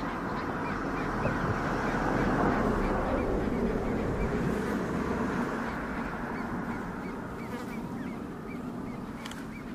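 Great crested grebe chicks at the nest calling over and over in short high peeps, a few a second, over a steady rushing background that swells about two seconds in.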